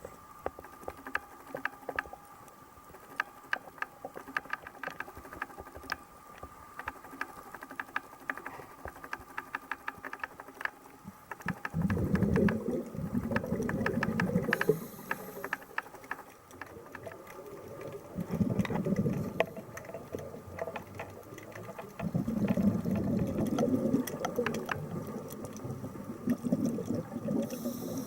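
Underwater sound picked up through a compact camera's housing: a scuba diver's regulator exhaling, heard as three bubbly rushes in the second half, each lasting one to three seconds. Scattered clicks and a faint steady hum run underneath.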